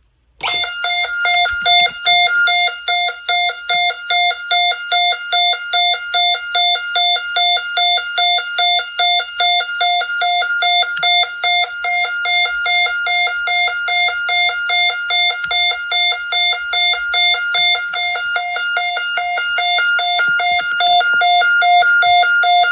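Snap Circuits fire alarm sounding: a loud electronic tone pulsing rapidly and evenly, starting about half a second in and cutting off at the end. It is shrill enough to hurt the ears.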